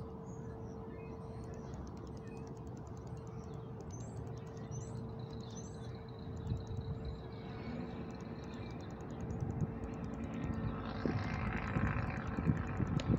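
Outdoor ambience in a parking lot: a steady low rumble of wind and distant traffic under a constant hum, with a few faint bird chirps in the first few seconds. A broad rushing noise swells up near the end.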